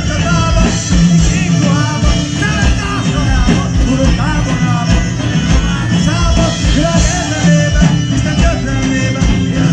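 Hungarian folk-rock band playing loud live music through a PA: a driving beat and bass under fiddle, a wind instrument and singing, with melody lines sliding up and down in pitch.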